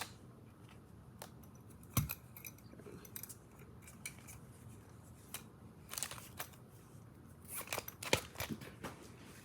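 Hands handling and unpacking small items and pouches: scattered light clicks and knocks with soft rustling, a sharper knock about two seconds in and a cluster of clicks near eight seconds.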